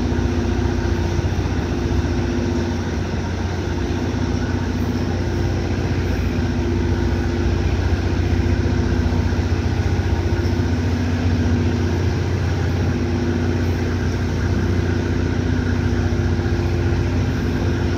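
Passenger ferry Salvia Maru's engines running steadily while moored: a continuous low drone with a hum that wavers in pitch every few seconds.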